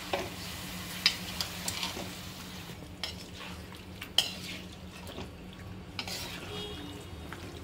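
Wooden spatula stirring and scraping marinated chicken pieces through masala in a metal kadhai, over a steady sizzle of frying. The spatula knocks sharply on the pan a few times.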